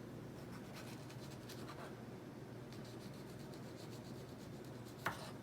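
Knife cutting strawberries: faint scraping and light ticks, with a sharper click about five seconds in.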